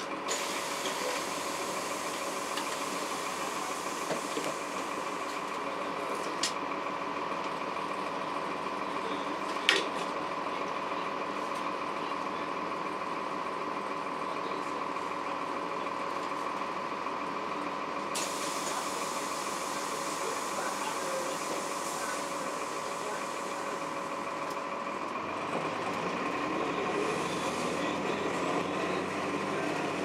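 Cabin sound of a 2002 Blue Bird CS transit bus: its Cummins ISC diesel and Allison B400R automatic drivetrain give a steady drone with a whine over it. There is a single sharp knock about ten seconds in, and the engine note rises near the end.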